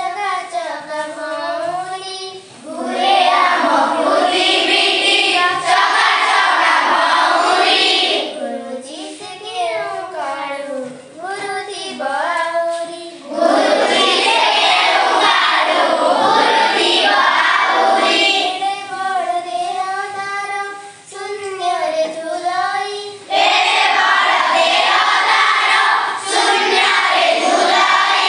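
Schoolgirls singing an Odia children's song about the Earth. A few young voices carry the melody, and three times a louder, fuller group of children's voices comes in.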